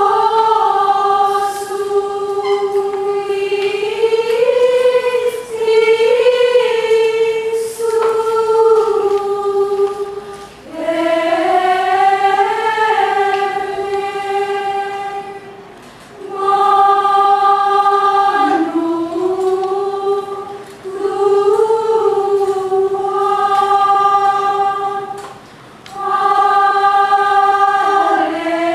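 Women's choir singing Gregorian chant a cappella in unison, in long held phrases with short breaks for breath between them.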